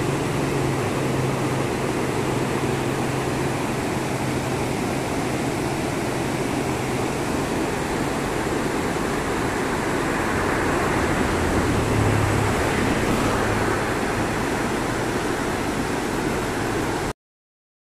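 Fast-flowing river rushing through rocky rapids, a steady noise of white water that cuts off suddenly near the end.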